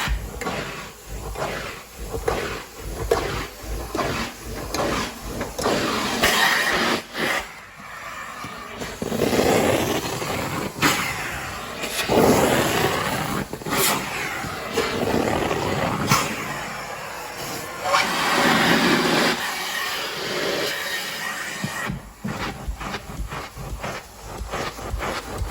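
Carpet-cleaning equipment working on carpet: uneven bursts of hissing spray and scrubbing noise, a few seconds each, with short strokes in between.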